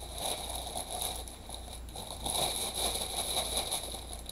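Small plastic bags of diamond-painting drills crinkling and rustling as they are handled, an irregular crackle.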